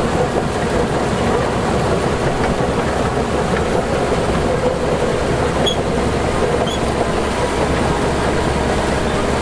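Heavy diesel earthmoving machinery running steadily under load, a constant low engine drone with mechanical clatter.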